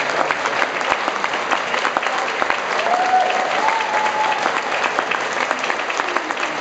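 Audience applauding a brass band at the end of a piece: dense, steady clapping. A single drawn-out high note from someone in the crowd rises above it about three seconds in.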